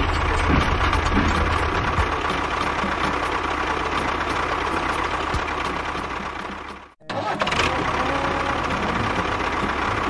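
Tractor engine running steadily, with a faint ticking about three times a second. It fades out about seven seconds in, breaks off briefly, and starts again.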